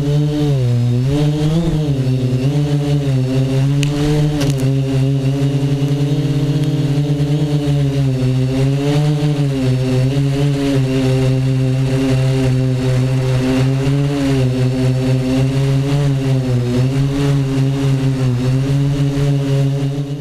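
Tricopter's three motors and propellers buzzing steadily in flight, the pitch wavering up and down as the throttle changes. Two brief sharp ticks about four seconds in.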